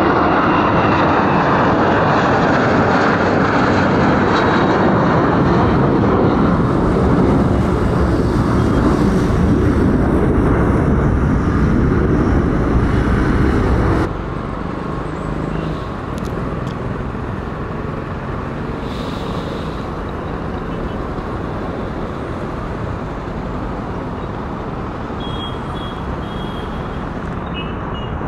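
Jet engines of a departing flydubai Boeing 737 at takeoff thrust, a loud steady roar as it climbs away. About halfway through, the sound cuts off suddenly to a quieter, even rumble.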